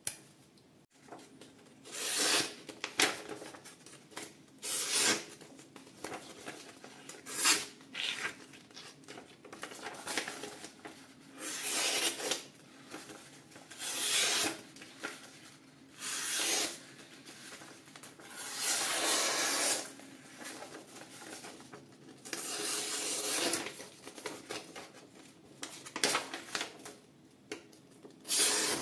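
Camillus folding knife blade slicing through paper: about a dozen separate cuts, one every one to three seconds, some short and some drawn out over a second or more.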